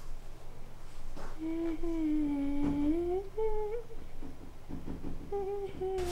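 A voice humming a slow, wavering tune in two phrases: one long phrase of about two and a half seconds, and a second that starts about five seconds in.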